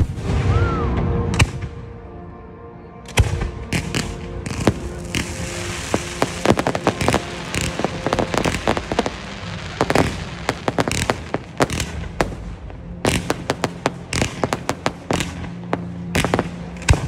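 Fireworks display: a shell bursts with a deep boom at the start, then from about three seconds in comes a dense, rapid crackling of many small pops that grows thicker near the end.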